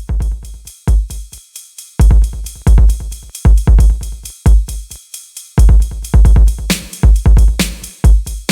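Hip-hop-style instrumental beat from a drum machine: heavy, deep bass-drum hits with snares and hi-hat ticks over them, the beat dropping out briefly a couple of times.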